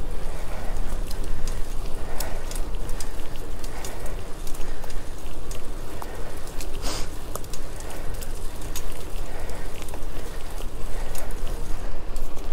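Bicycle riding noise on a GoPro: a steady low wind rumble on the microphone, with a crackle of small clicks and rattles and a sharp knock about seven seconds in.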